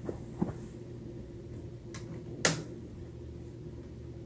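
Adidas Human Race NMD sneakers stepping and shuffling on carpet: a few soft taps and scuffs over a steady low hum, with one sharp click about two and a half seconds in.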